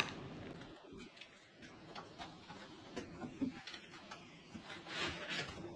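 Faint scattered clicks and ticks of items being handled in a laptop box, with a soft rustle near the end.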